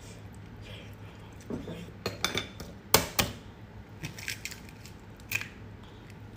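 Cooked eggshell being cracked and peeled by hand: scattered small crackles and clicks, with two sharp cracks about three seconds in.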